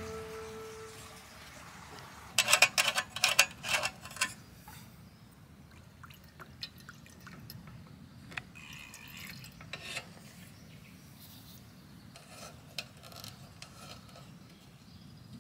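Fuel poured from a metal can into a small hurricane lantern's tank, with clicks and knocks from the can and the lantern's metal filler cap. The loudest part is a quick run of sharp clicks a few seconds in; the soft pour comes about halfway, and the cap is handled with light clicks near the end.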